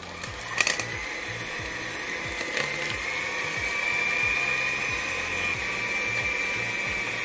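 Electric hand mixer running on a slow setting, its twin beaters whirring through a soft cream cheese and coffee mixture in a stainless steel bowl, with a steady high motor whine. A couple of sharp clicks come about half a second and two and a half seconds in.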